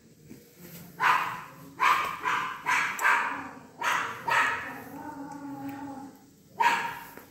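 A dog barking: about eight sharp barks in uneven bursts, with a longer, lower drawn-out call between the last ones.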